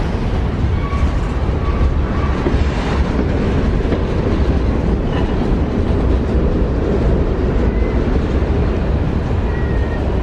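Freight train of covered hopper cars rolling past close by, a steady, loud rumble and rattle of steel wheels on the rails.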